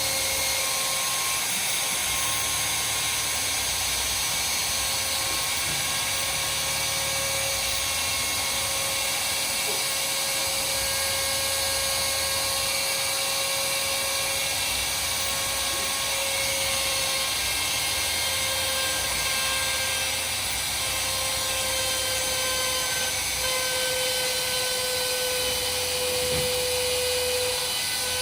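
Router spindle of a DIY mostly printed CNC machine running while it mills, a steady high whine and hiss with a tone that drifts slightly in pitch.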